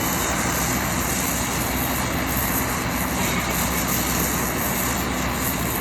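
Steady, loud workshop noise: a continuous even hiss with a low, constant hum beneath it, unchanging throughout.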